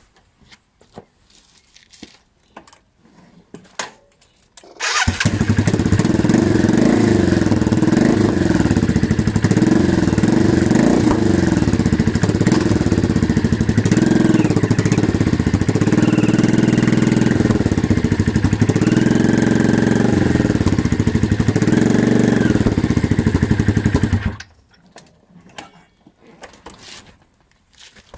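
Yamaha Virago 535 V-twin engine starting about five seconds in, revved up and down repeatedly, then switched off a few seconds before the end. A faint high whistling whine rides over the engine sound as it revs, the noise the owner is asking about.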